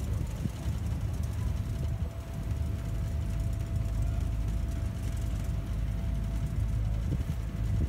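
A river tour boat's motor running steadily: a continuous low rumble, with a faint steady high tone from about a second and a half in until near the end.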